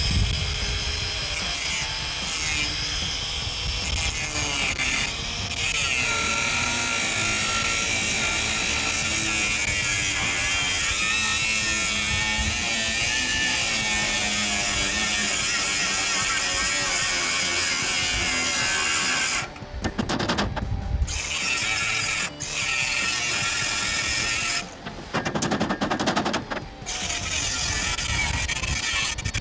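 Angle grinder grinding welded-on scrap metal off a steel trailer frame. It runs steadily and stops briefly twice in the last third.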